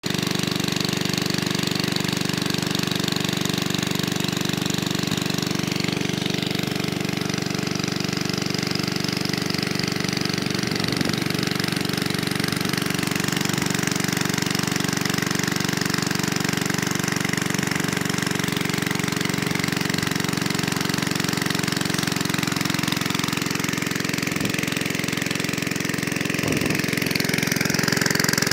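Small diesel water pump engine running steadily with an even knocking chug, over the rush of water gushing from its discharge pipe. It gets a little louder near the end.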